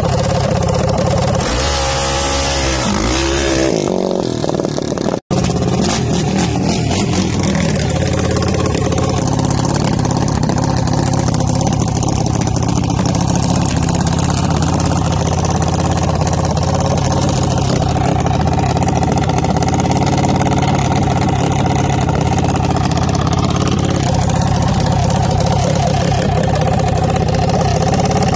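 Small dragster's engine revving up and down over a hiss in the first few seconds, as the car sits in the wet water box for its burnout. After a brief dropout it runs on at a steady, even idle.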